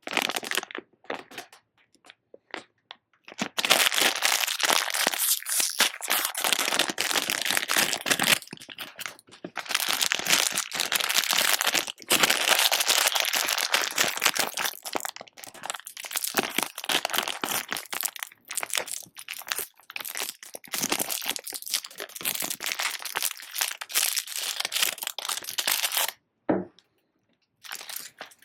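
Packaging of surprise eggs crinkling and tearing as they are unwrapped by hand, in long stretches of dense crackling with short pauses between.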